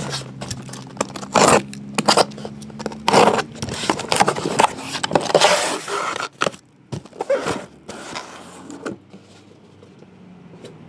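Cardboard shipping case being opened by hand and its shrink-wrapped boxes pulled out and stacked: a run of tearing, scraping and rustling noises that grow sparser and quieter in the last few seconds.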